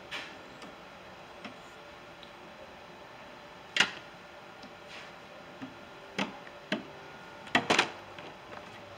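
Scattered clicks and knocks of hands working on plastic and metal car parts: a sharp knock about four seconds in, two lighter clicks later, and a quick run of knocks near the end, over a faint steady background hum.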